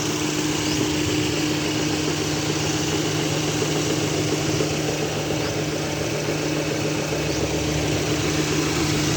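Suzuki Swift double-overhead-cam engine idling steadily, running with a misfire that the owner puts down to a failing ignition coil. A deeper low hum joins about seven seconds in.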